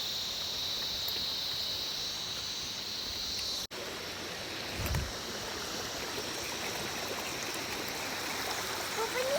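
River water flowing steadily, a constant rushing wash. A high steady buzz runs alongside it until the sound cuts out abruptly for an instant about four seconds in, and a short low bump follows about a second later.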